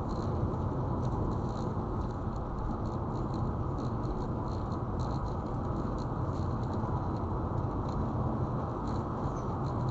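Car driving along a highway: a steady rumble of road and tyre noise, with faint irregular light ticking over it.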